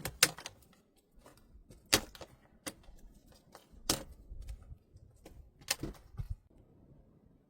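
A series of irregular sharp knocks and clicks, the loudest just after the start, about two seconds in, about four seconds in and near six seconds, with lighter taps between.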